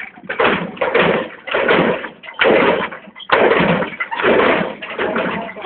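Lowrider Chevrolet Impala hopping its front end on hydraulic suspension, with about seven loud bursts a little more than one a second as the car launches and comes crashing down.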